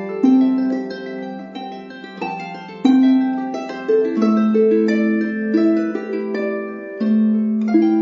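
Calm instrumental background music: a slow melody of single notes that start sharply and ring on, overlapping one another.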